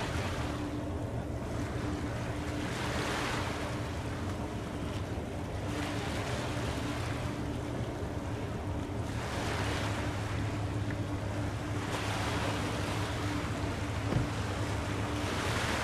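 Waves washing in, swelling and fading about every three seconds, over a steady low hum, with one small knock near the end.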